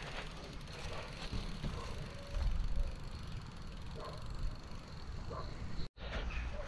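Riding noise of a mountain bike on a trail: wind rumbling on the microphone over tyre and frame noise. The sound cuts out for a moment near the end.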